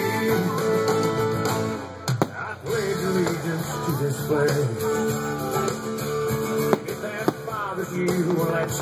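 Guitar-led pop-rock music playing, broken by a sharp bang about two seconds in and two more close together about seven seconds in, from fireworks bursting.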